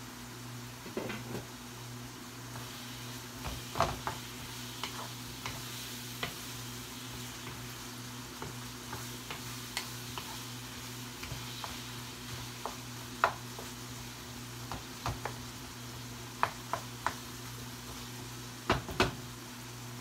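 Wooden spoon stirring food sizzling in a stainless steel frying pan on a gas burner, with scattered clicks and knocks of the spoon against the pan, the loudest about 4, 13 and 19 seconds in. A steady low hum runs underneath.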